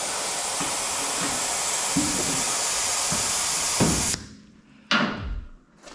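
Compressed air hissing out of the front air-ride bags as they are let down to lower the car. The hiss is loud and steady, then cuts off suddenly about four seconds in, and a single sharp knock follows a second later.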